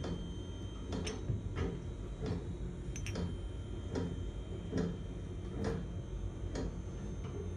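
Light clicks from steel spur gears of a hedge trimmer gearbox being handled and knocked together, roughly one a second, over a steady low hum.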